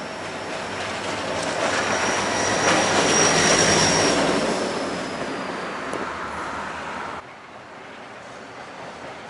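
CN diesel locomotive passing right underneath: the rumble of engine and wheels swells to its loudest about three and a half seconds in and then fades, with a high squeal that sinks slightly in pitch as it goes by. The sound drops off abruptly about seven seconds in.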